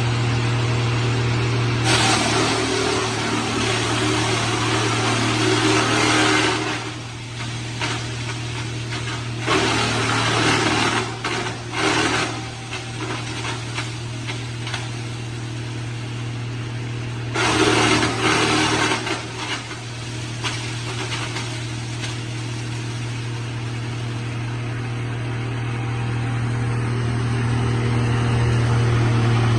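Wood log crusher running with a steady low drone, broken by three louder stretches of grinding noise as wood is fed in and crushed into sawdust: a long one starting about two seconds in, another around ten seconds, and a shorter one near eighteen seconds.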